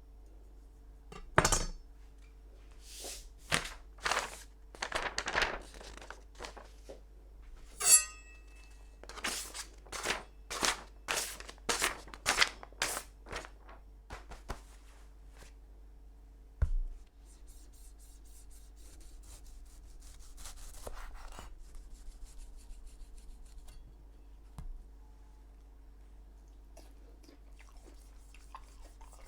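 Steel knife blade drawn in repeated strokes across a whetstone, about one every half to three-quarters of a second, with a sharp hit before the strokes start and a short metallic ring partway through.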